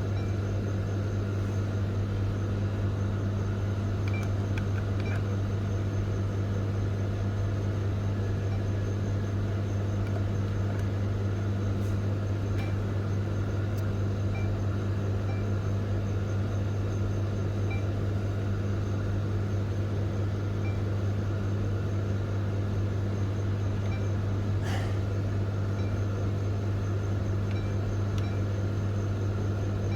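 Steady low machine hum from an office photocopier, a Canon imageRUNNER ADVANCE, with a few faint short blips and a single click about 25 seconds in.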